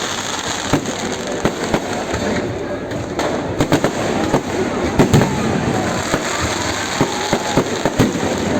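Fireworks display: a rapid, uneven run of bangs and crackling reports going off one after another, with crowd voices underneath.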